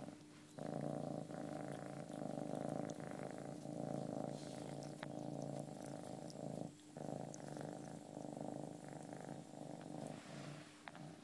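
Domestic cat purring loudly, right up against the microphone, with two short breaks: one at the very start and one just past halfway.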